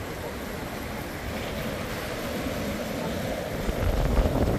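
Strong wind rumbling on the microphone over the wash of surf breaking on the beach, the wind gusting harder near the end.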